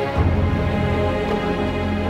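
Epic orchestral background music playing held chords, with a deep bass note swelling in shortly after the start.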